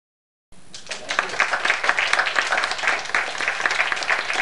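An audience applauding: a dense, even patter of many hands clapping that cuts in abruptly about half a second in.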